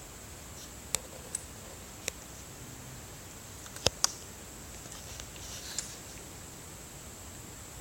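A few sharp, separate clicks, two of them close together about four seconds in, then a brief soft rustle of handling, over a steady hiss.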